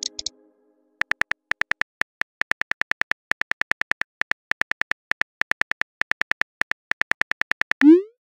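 Phone keyboard key-click sounds in quick succession, about six short pitched ticks a second in uneven runs, as a text message is typed. Near the end comes a short rising swoosh as the message is sent.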